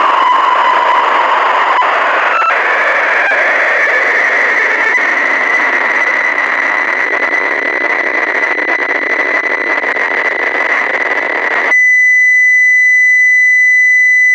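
Loud static hiss from a phone's speaker, with a faint tone under it that rises in pitch over the first few seconds. Near the end the static cuts off suddenly and a loud, steady high-pitched beep takes over.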